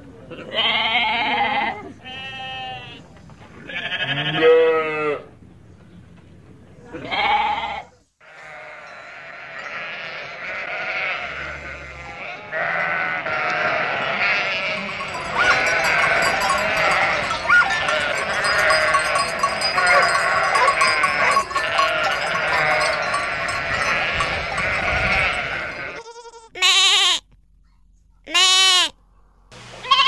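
Sheep bleating: several separate bleats, then a large flock bleating all at once in a dense chorus. Near the end, two short separate bleats from a goat.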